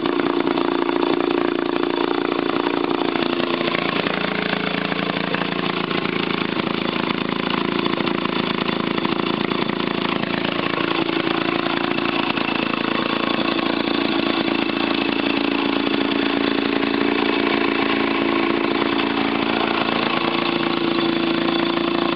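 Vintage Maytag twin-cylinder two-stroke engine running steadily, just after being kick-started.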